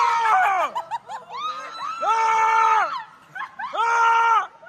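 People screaming in excitement: high-pitched shrieks, three long ones held about a second each, with shorter cries between them.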